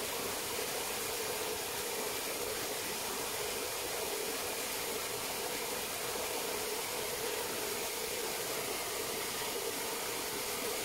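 Steady, even hiss with a constant hum underneath, unchanging throughout, with no distinct events.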